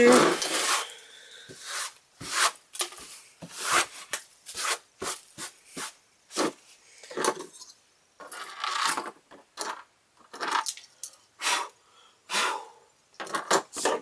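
A tissue wiping across a tabletop for about a second, then a string of short clinks and knocks as steel pocket knives, multi-tools and key rings are picked up and set down on the table.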